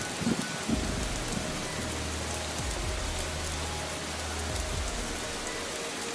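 Steady rain falling: an even hiss with faint scattered drop ticks, and a few low rumbles in the first second.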